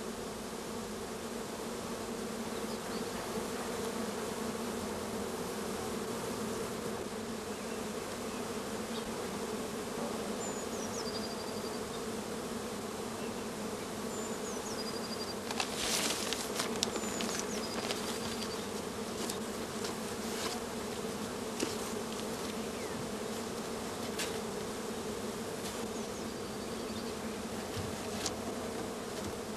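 Dense, steady buzzing of a strong honeybee colony, a hum of many bees at once. A few sharp clicks come about halfway through.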